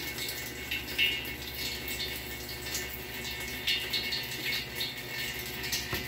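Whirlpool top-load washing machine filling with water: a steady rush of water into the tub with irregular small splashes, as the machine's automatic test mode runs its fill stage.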